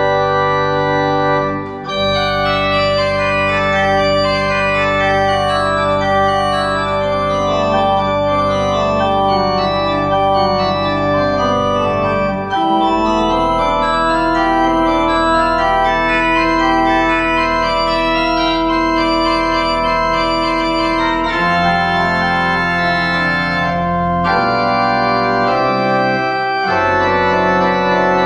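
Organ playing the postlude at the end of a church service: sustained chords over held bass notes, with moving lines above. The music pauses briefly between phrases about 2 and 12 seconds in.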